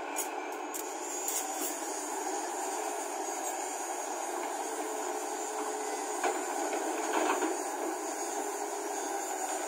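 Hyundai crawler excavator's diesel engine and hydraulics running steadily under load as the machine swings and digs, with a few short knocks about six and seven seconds in as the bucket bites into the soil.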